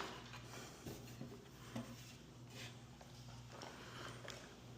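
A few faint, scattered clicks and taps of hardware being handled, over a steady low hum.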